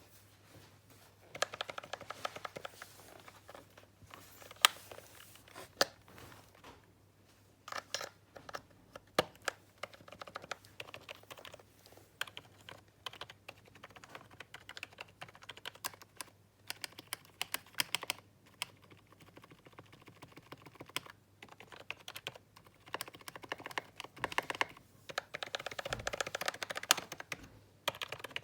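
Membrane computer keyboard being typed on in bursts of quick keystrokes with pauses between, and a few single keys struck harder on their own. A faint steady low hum runs underneath.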